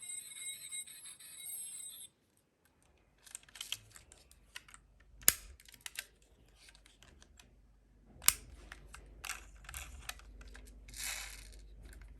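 Background music for about two seconds, then a short gap. After that come light clicks and rattling from toy minicars being handled and run, with two sharper clicks about five and eight seconds in.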